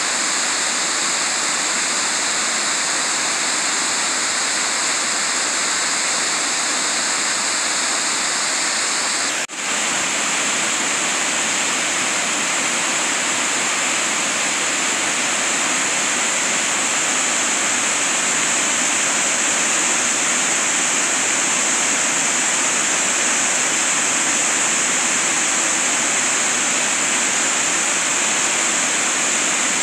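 Steady rush of water from a tall cascading waterfall plunging over rock ledges, with a brief dropout about nine and a half seconds in.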